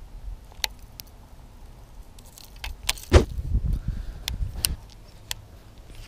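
Fishing rods and baitcasting reels being handled: scattered clicks and light knocks of the gear, the loudest about three seconds in, with a low rumbling handling noise for a second or so after it.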